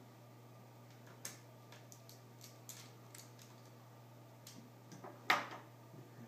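Scattered light clicks and taps of hand work on a netbook's plastic screen bezel and its screws during reassembly, the loudest click about five seconds in, over a steady low hum.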